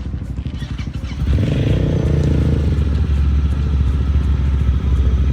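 ATV engine running close by, getting louder about a second in and then holding a steady rumble.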